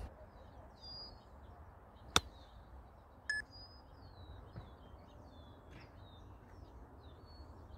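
A single crisp strike of a Callaway Jaws 60-degree wedge on a golf ball, about two seconds in. A brief high tone follows about a second later, and small birds chirp faintly throughout.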